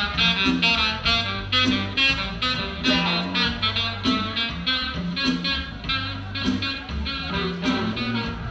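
Live band music with a steady beat, bass and melody instruments playing together.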